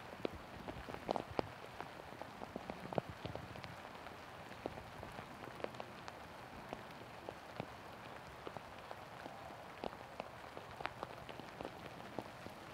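Steady light rain falling, with scattered drops ticking sharply close by at irregular moments.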